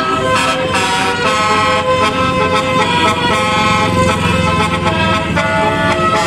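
Indonesian 'telolet basuri' multi-note bus air horns playing a tune, held notes stepping from one pitch to the next, over a low bus engine rumble that swells about four seconds in.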